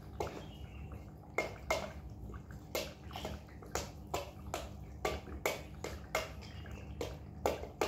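Metal spoon clinking and scraping against a stainless steel bowl as wet cat food is spooned out, in irregular sharp clicks two or three a second.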